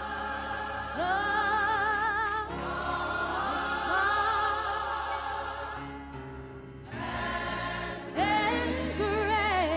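Church choir singing a slow gospel song, long held notes with wide vibrato, over sustained low instrumental accompaniment.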